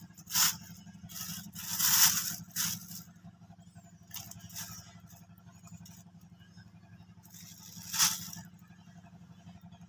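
Thin clear plastic bag crinkling in bursts as fish are pushed into it, loudest about half a second in, around two seconds and near eight seconds, over a steady low hum.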